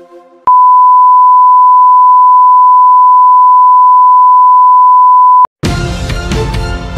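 Colour-bar test tone: one loud, steady, pure beep held for about five seconds and cut off suddenly. Near the end a TV station-ident music theme starts up.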